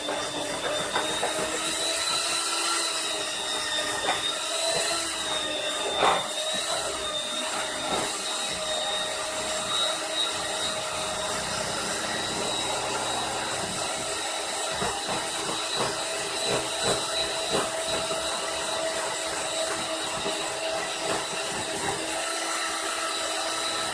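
Small electric motor running steadily with a whine that wavers slightly in pitch, with one sharp knock about six seconds in.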